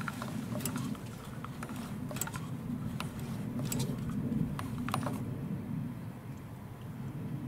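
Several sharp plastic clicks and taps from a large syringe being worked on the hose to a turbo wastegate actuator as it is pressurised, over a steady low rumble.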